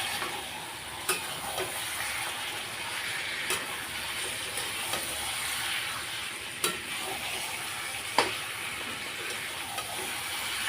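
Chicken frying in oil and masala in a kadhai, with a steady sizzle as it is stirred. A few sharp knocks of the stirring spoon against the pan come through it.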